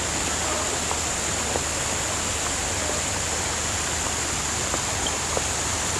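Steady, even outdoor rushing noise with a hiss high in pitch, marked by a few faint scattered ticks.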